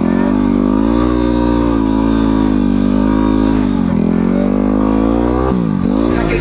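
Motorcycle engine running with its pitch wavering at a held speed, easing down about four seconds in. Near the end the pitch drops and then climbs sharply, a quick blip of the throttle.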